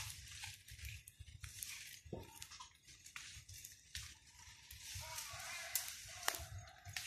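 Faint scattered clicks and crackles of hands and sticks handling leaves, dry clay clods and clay-baked duck eggs, over a low rumble.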